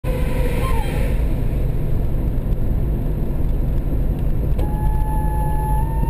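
1992 Jeep Cherokee XJ's 4.0 HO straight-six with a Flowmaster muffler, heard from inside the cabin while driving: a steady, deep exhaust drone. A thin steady tone joins in about two-thirds of the way through.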